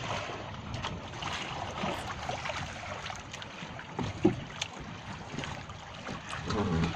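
Sea water splashing and pouring out through a woven bamboo fish trap as it is hauled up to the surface beside a small boat, with wind on the microphone. A brief human voice is heard near the end.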